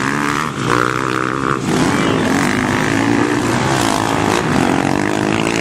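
Motocross bike engines revving hard, their pitch rising and falling as the riders work the throttle.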